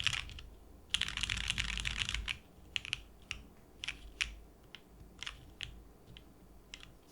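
Mechanical keyboard with lubed Lavender linear switches on an o-ring-mounted polycarbonate plate, GMK keycaps: a fast roll of keystrokes ends at the start, a second fast roll runs from about a second in, then slower single key presses follow one by one until near the end.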